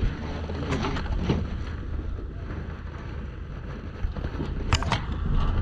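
Wind buffeting the microphone over a steady low rumble, with a few sharp clicks, two about a second in and a quick cluster of them near the end.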